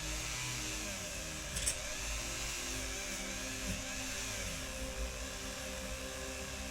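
Spinning wire brush on a high-speed rotary tool scrubbing a zinc diecast car body, a steady whirring hiss with a sharp click about a second and a half in.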